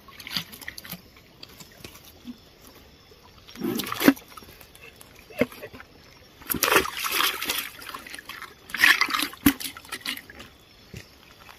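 A landed stingray flapping on wet rocks: three bouts of wet slapping and splashing, about four, seven and nine seconds in, two of them ending in a sharp knock.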